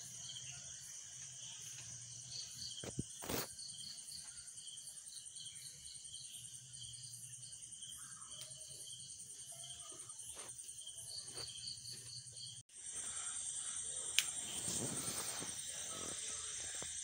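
Crickets trilling faintly and steadily at a high pitch, with a pulsing chirp over the top. A few sharp clicks come early on. Near the three-quarter mark the sound breaks off for a moment and comes back slightly louder.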